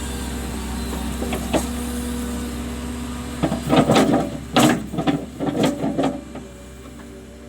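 A machine engine running steadily, with a burst of loud rattling and clanking about halfway through lasting some three seconds; afterwards the engine runs on more quietly.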